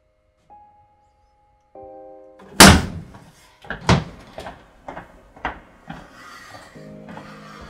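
Soft score music holds a single note, then a chord. About two and a half seconds in, a loud slam cuts in, followed by a run of lighter knocks and clatter.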